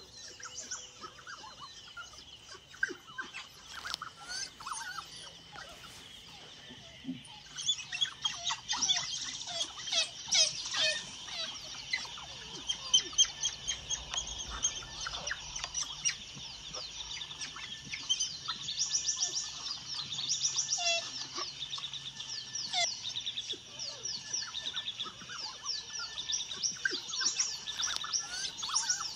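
Many wild birds calling at once: quick chirps and chattering notes, sparse at first and much busier from about seven seconds in, over a steady high tone.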